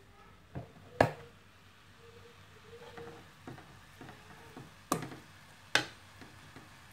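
Plastic spatula stirring and turning brinjal thoran in a metal kadai, knocking against the pan a few times; the sharpest knock comes about a second in, with two more near the end.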